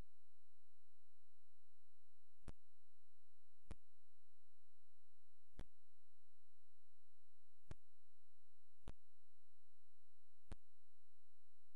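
Steady electrical hum with a thin high whine, broken by six short, sharp clicks spaced one to two seconds apart.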